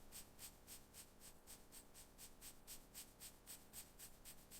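Near silence with faint scratching strokes, about four a second, of rust being scrubbed off a cast iron hitching ring.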